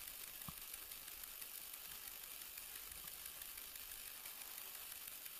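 Faint steady hiss with a thin high whine, the recording's own background noise, and one small tap about half a second in.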